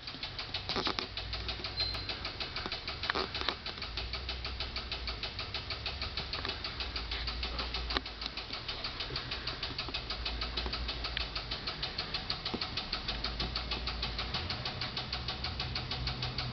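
Chevrolet Silverado pickup's engine idling steadily, with a fine, even ticking over the low rumble and a few scattered clicks.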